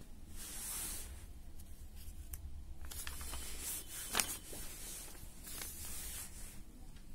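Paper pages of a printed question booklet rustling as they are handled and turned over, in three short bursts, with one sharper crackle about four seconds in.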